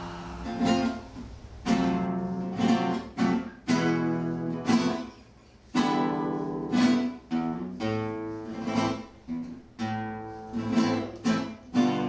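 Acoustic guitar music: strummed chords struck one after another, each ringing out and fading before the next.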